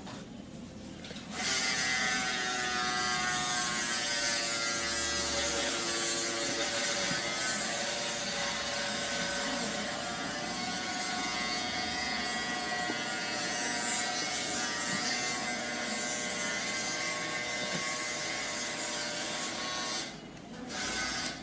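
A small electric motor runs steadily for about eighteen seconds with a whine and a hiss, then cuts off suddenly.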